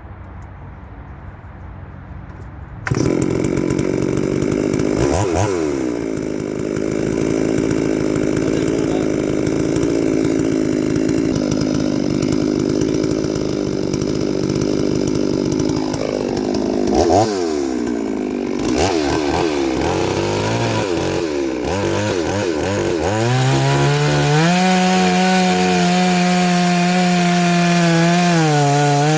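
Two-stroke chainsaw revved hard about three seconds in and cutting into wood, its engine pitch sagging under load and picking up again several times, then running steadily at high revs near the end. It is cutting with a chain freshly ground at a 50-degree angle.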